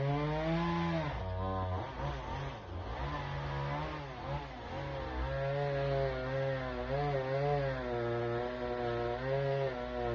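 Chainsaw cutting firewood: the engine runs at high speed, its pitch sagging repeatedly as the chain loads in the wood and rising again as it frees.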